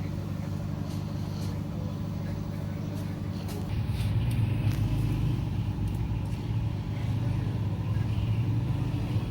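Dawlance microwave oven running with a steady electrical hum, which steps up and gets louder about four seconds in. It runs without heating: the cup of water inside stays cold.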